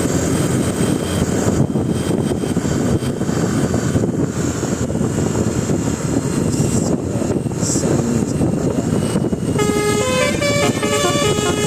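Steady rumble of a bus engine and road noise, then near the end a bus's telolet horn plays a quick tune of short stepped notes.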